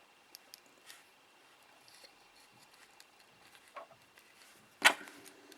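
Small clicks and light taps from handling soldering tools and the tiny drone's parts at a workbench, scattered through, with one sharp, much louder click near the end.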